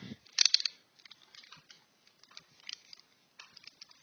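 Light clicks and small rattles of hand tools being handled and set down, with a short cluster of clicks about half a second in and scattered faint ticks after.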